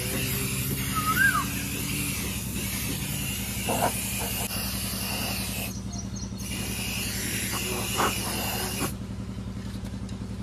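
Aerosol spray-paint can hissing as red paint is sprayed onto a tractor's front wheel rim. The spray stops briefly around the middle and stops again near the end, over a steady low mechanical hum. A single short rising-and-falling call is heard about a second in.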